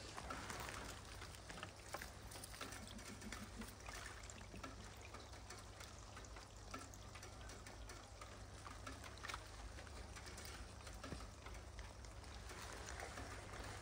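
Faint fizzing and crackling from a partly frozen pond surface, with many small irregular ticks.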